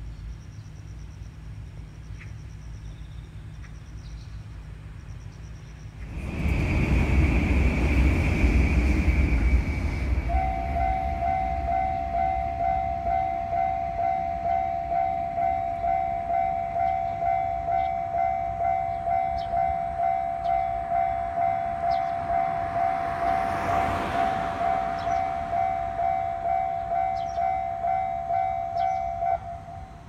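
Japanese railway level-crossing warning bell ringing: a rapid, evenly repeated electronic ding that starts about ten seconds in and stops just before the end. A loud rushing noise comes in about six seconds in, ahead of the bell, and a passing whoosh swells and fades about three-quarters of the way through.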